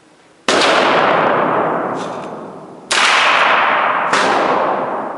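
Three gunshots, about half a second in, near three seconds and a second after that, each ringing out in a long echo in the enclosed indoor range.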